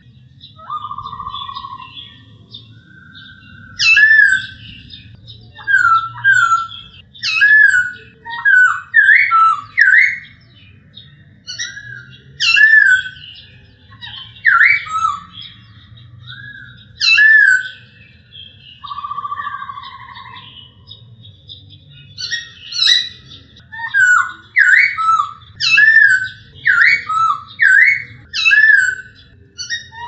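Male black-throated laughingthrush (poksay Hongkong) singing: a run of loud, clear whistled notes, each a short up- or down-slurred phrase, given in quick series. A longer buzzy note comes twice, about a second in and again a little past the middle, where the singing eases for a few seconds.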